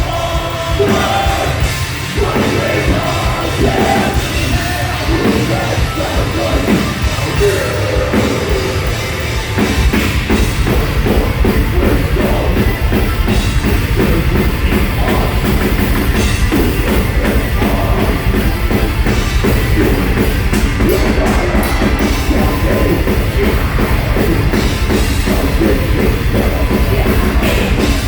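Metalcore band playing live: distorted guitars, bass and drums. About ten seconds in, the drums pick up into a fast, dense beat under the guitars.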